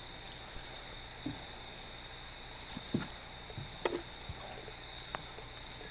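A hooked flathead catfish splashing at the water's surface as it is brought in on the line: a few short, irregular splashes, the strongest about 3 and 4 seconds in. A steady high insect trill runs underneath.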